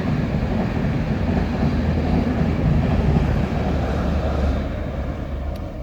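Intercity passenger train passing: a loud, steady noise of the train going by, dying away near the end.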